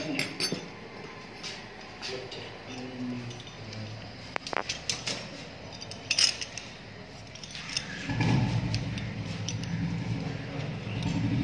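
Scattered metal clinks and knocks as the steel parts of a drain-cleaning rod are handled. About eight seconds in, a steady low engine hum starts and continues.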